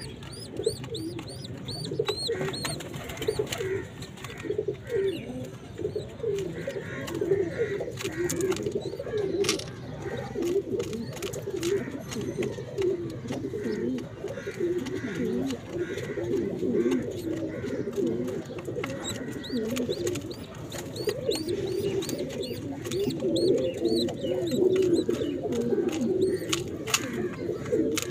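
Domestic pigeons cooing almost without a break, a low wavering coo. Faint high chirps come through near the start and again near the end.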